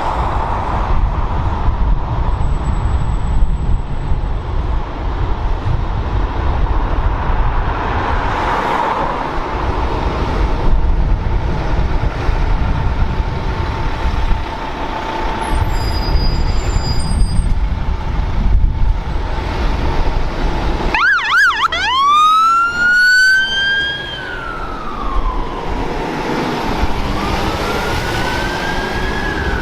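Road traffic and a heavy vehicle's engine running. About two-thirds of the way in, a fire engine's siren starts up: a wail that climbs, falls away and climbs again.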